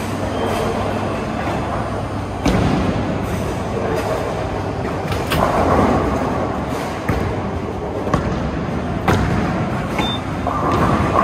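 Bowling alley noise: a steady rolling rumble broken by several sharp knocks and crashes of balls and pins.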